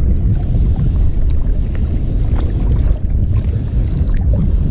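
Wind buffeting the microphone, a steady low rumble, with faint irregular ticks as a spinning reel is wound in against a hooked fish.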